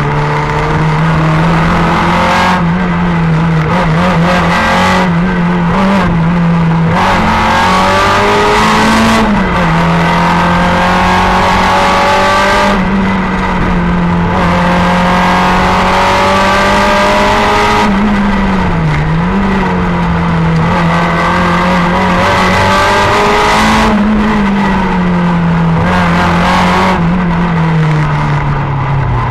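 Simca 1000 rally car's rear-mounted four-cylinder engine running hard, heard from inside the cabin, its revs climbing and dropping again and again through gear changes and bends.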